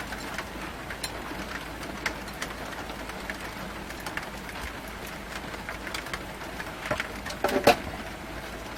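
Steady rain falling, an even hiss with scattered drip ticks. A short cluster of knocks comes about three-quarters of the way through, and it is the loudest sound.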